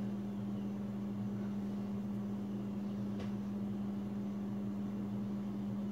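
Steady low mechanical hum, with one faint click about three seconds in.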